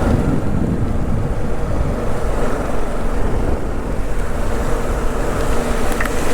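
Motorcycle being ridden: a steady engine note under a heavy rush of wind and road noise on the rider's camera microphone.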